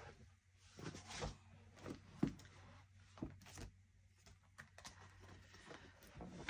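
Quiet room tone with a faint low hum and a scattering of brief soft clicks and taps, the clearest about two and three and a half seconds in.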